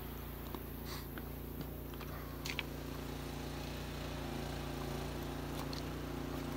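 Vehicle engine idling: a steady, even low hum, with a couple of faint clicks over it.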